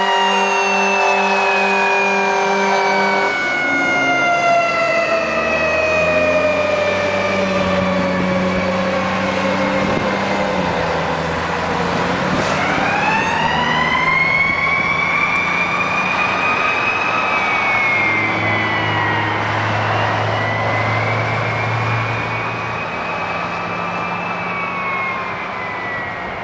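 Fire engine's mechanical siren slowly winding down in one long falling glide, then spun up again about halfway through and wailing up and down, fading as the truck pulls away. A steady horn blast sounds for the first three seconds, with the truck's engine running underneath.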